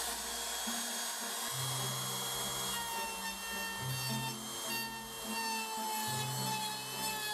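Handheld electric trim router running steadily, its bit cutting into a wooden frame rail, with a high motor whine. Background music plays underneath.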